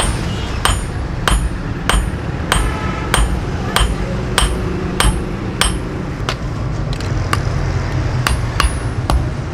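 Hand hammer striking red-hot steel from an old file on a steel block anvil, steady blows about one every two-thirds of a second, each with a short metallic ring. There is a brief gap in the blows a little past the middle.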